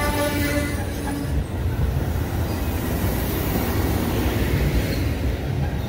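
Amtrak Coast Starlight's bilevel Superliner cars rolling slowly past a station platform: a steady low rumble of wheels on rail. The tail of the train's horn blast cuts off just after the start.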